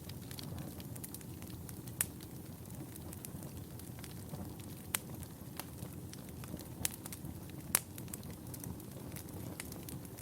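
Wood fire in a fireplace burning with a steady low rumble and irregular crackles and pops, the sharpest about two, five and eight seconds in.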